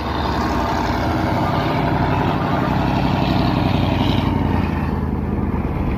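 Heavy truck's diesel engine running close by as it passes, over the steady rumble of other vehicles' engines in slow traffic.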